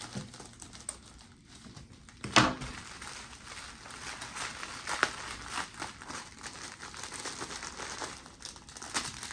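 Plastic packaging crinkling and rustling as a small package is torn open by hand, with dense crackling through most of it. One loud, sharp crackle about two seconds in is the loudest moment.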